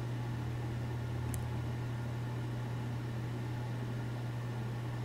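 Steady low electrical hum over a faint hiss, with one brief faint tick about a second in.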